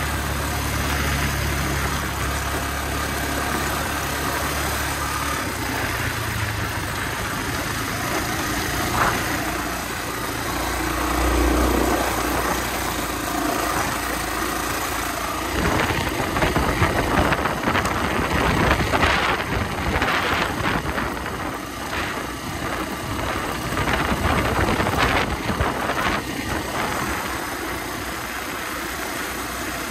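Honda XR250R's single-cylinder four-stroke engine running as the bike is ridden along at speed. From about sixteen seconds in, for ten seconds or so, the sound gets louder and rougher, with many knocks and rattles over the uneven track.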